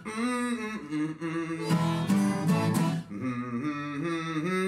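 Background song led by strummed acoustic guitar.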